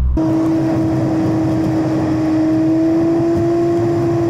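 Car driving at speed: a steady whine that rises slightly in pitch, over road and wind noise, starting abruptly just after the start.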